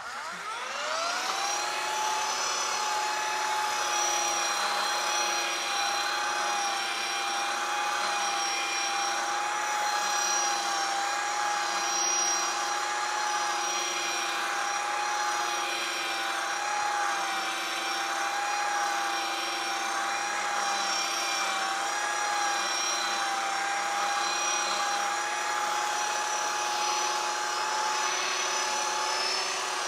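Electric sander spinning up to speed, then running steadily with a whine while sanding a black walnut mantel.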